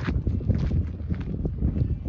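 Wood campfire crackling, with irregular sharp pops and snaps over a steady low rumble of burning.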